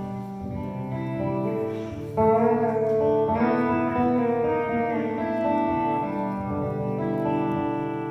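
Electric guitar played through an amplifier, with picked notes and chords ringing into each other; a louder chord comes in about two seconds in.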